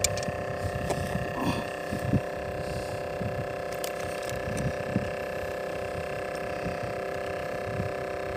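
A steady, even drone made of several held tones, with faint low rumbling and a few light knocks underneath.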